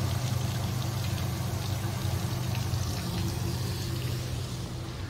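Water pouring and splashing from the tipping metal buckets of a kinetic bucket fountain into its pool, over a steady low hum. The splashing eases near the end.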